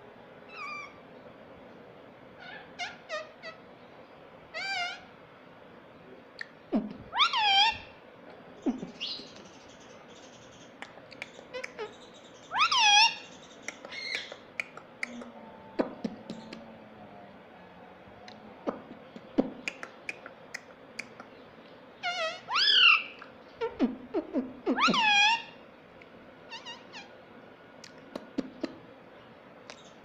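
Indian ringneck parakeet calling and chattering: a string of short chirps with several loud drawn-out calls that fall in pitch, bunched in three bouts, the last a cluster of calls. A few sharp clicks come in between.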